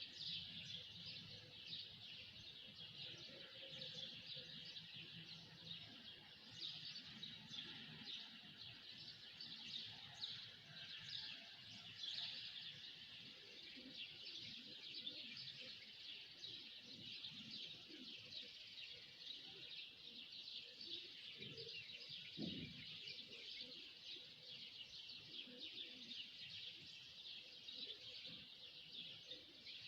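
A chorus of many small birds chirping and twittering at once, a dense high-pitched chatter that never stops.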